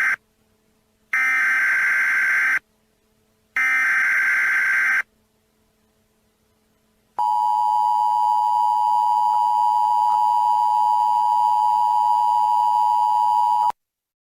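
Emergency Alert System broadcast tones. First come the digital SAME header bursts: the tail of one, then two more harsh buzzing data bursts about a second and a half long with roughly a second's pause between them. About seven seconds in, the steady two-tone EAS attention signal sounds for about six and a half seconds and cuts off abruptly.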